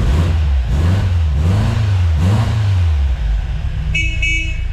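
Car engine revving twice and settling back, then two short toots of a car horn near the end.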